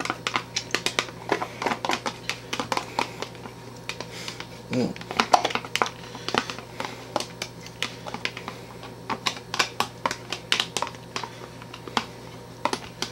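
Thin plastic tub squeezed and tapped upside down to work thick strawberry glaze out: a run of irregular plastic clicks and crinkles.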